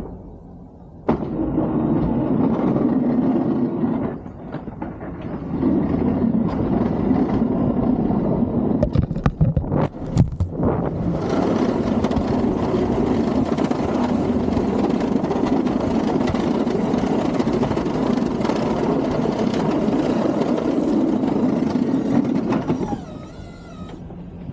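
Snow-plow vehicle running loud and steady, kicking in about a second in, easing off briefly around four seconds, with a quick run of knocks around ten seconds, and dropping away near the end.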